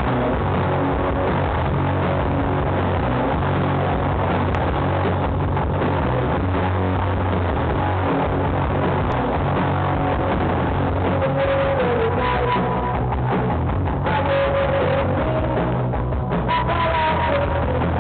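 Rock band playing live with electric guitar, loud and continuous, picked up by a poor-quality camera microphone.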